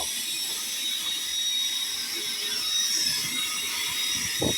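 Wet/dry vacuum running with a steady high whine while sucking up flood water, with irregular rattles and gurgles as water is drawn into the hose.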